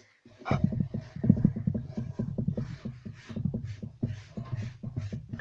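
Hands handling things close to the microphone: a quick, irregular run of dull thumps and light crackles.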